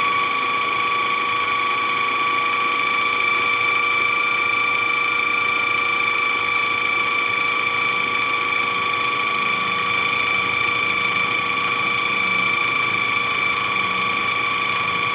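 Food processor running steadily with an even motor whine, its blade grinding walnuts that are turning oily on the way to walnut butter.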